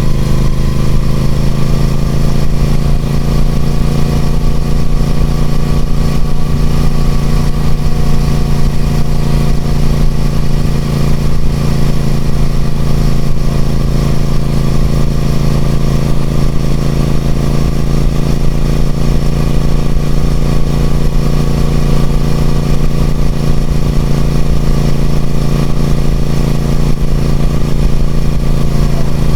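Triumph Speed Twin 1200's parallel-twin engine running through its stock exhaust at a nearly even engine speed. The pitch rises slightly over the first few seconds and eases a little near the end.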